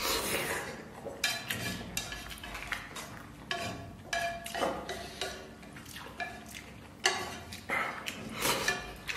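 Noodles slurped straight from a frying pan held up to the mouth, with chopsticks clinking and scraping against the pan in between. The slurps come near the start and again near the end.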